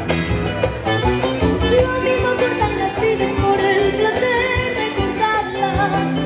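A boy singing a folk song, his voice wavering in pitch, over strummed and plucked acoustic guitars.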